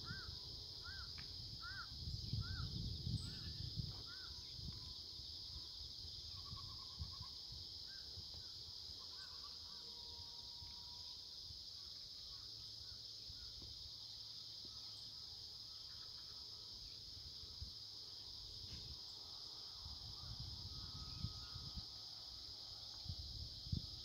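Outdoor rural ambience: a steady, high insect chorus throughout, with a bird calling in a run of repeated rising-and-falling notes, about two a second, that stops about four seconds in. Low rumbles on the microphone come and go.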